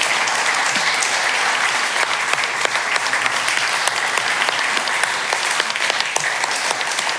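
Live audience applauding, a steady dense clapping of many hands.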